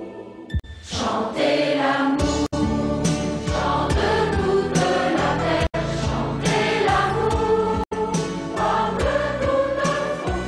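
A choir singing a song with music, coming in about a second in after a brief pause, with a few momentary dropouts in the sound.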